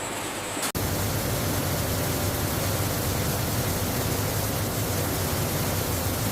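Steady machine noise: a low hum with hiss across the whole range and a faint steady tone above it. It comes in after an abrupt cut just under a second in.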